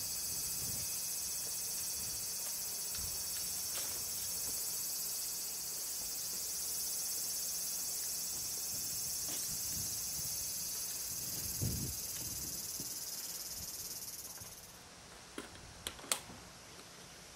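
Insects chirring steadily, a dense high-pitched drone that cuts off suddenly about fifteen seconds in. A few sharp clicks follow near the end.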